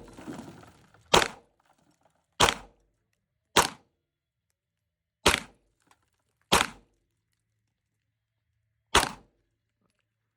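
Six single gunshots fired one at a time at uneven intervals of about one to two and a half seconds.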